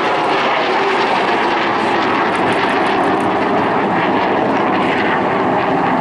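LIM-5 (licence-built MiG-17F) jet fighter flying a display pass on full afterburner: loud, steady jet noise from its afterburning turbojet.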